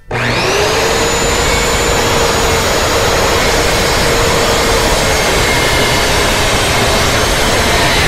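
Skil corded circular saw starting up with a quick rising whine, then running steadily as it cuts an angle through a 1x12 board.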